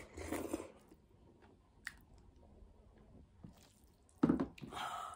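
Slurping a sip of nettle soup from a bowl, then wet chewing and lip-smacking, with a louder wet slurp or smack about four seconds in.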